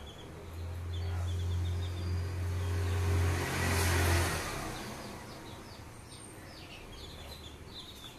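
A motor vehicle passing by: a low engine hum sets in about half a second in and the noise swells to a peak around three to four seconds in, then fades. Chicks peep in quick short series throughout.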